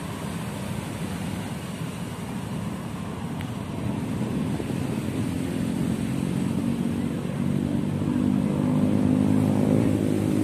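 Road traffic: a motor vehicle's engine draws nearer, growing louder through the second half, and its pitch begins to fall as it passes near the end, over a background rumble of traffic.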